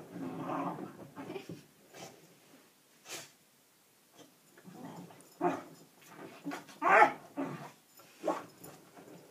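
Springer spaniel digging at sofa cushions and pushing its nose into the gap behind them, making scrabbling and snuffling dog noises in bursts. There is a quiet spell in the middle, and the loudest burst comes near the end.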